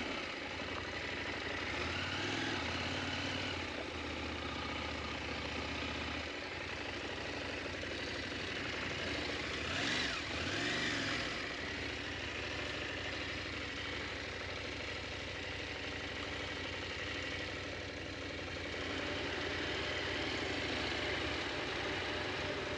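KTM 890 Adventure's parallel-twin engine running at low revs over a steady hiss, with the engine note rising and falling briefly around the middle.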